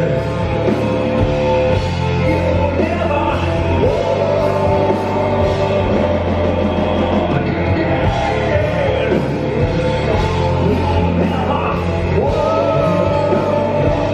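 A gothic metal band playing live in a concert hall: distorted electric guitars, bass and drums, with long sung notes over them.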